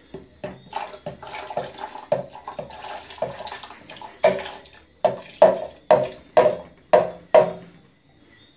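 Canned sweet corn and its liquid poured into a blender jar, splashing and pattering. Then about six sharp taps, roughly two a second, as the upturned can is knocked to shake out the last kernels.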